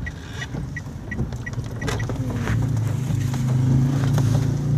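Car's turn-signal indicator ticking about three times a second as the car turns in, stopping about two seconds in; the engine's low hum then grows louder and steadier as the car pulls up.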